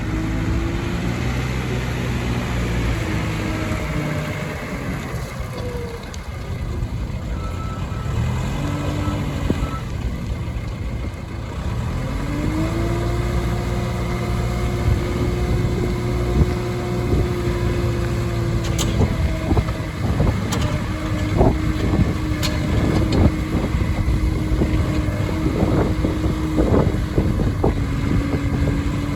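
JCB 3CX backhoe loader's diesel engine running, its speed dropping and rising several times as the machine is worked. Several short sharp knocks come in the second half.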